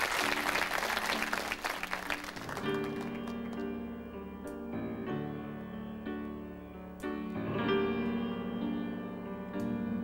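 Studio audience applause dying away over the first couple of seconds as a grand piano begins a slow introduction, held chords changing every second or two.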